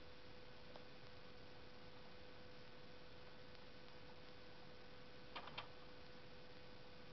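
Near silence: a faint steady hum, broken about five seconds in by three small clicks in quick succession.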